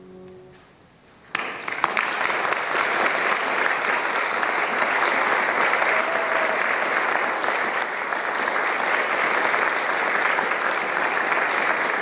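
The last chord of a grand piano dies away, and a little over a second in an audience breaks into applause, which keeps up steadily.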